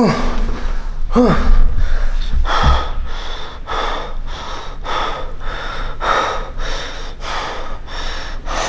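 A man breathing hard after a heavy set of pendulum squats: two short groans at the start, a low thump, then rapid, rhythmic gasping breaths about two a second.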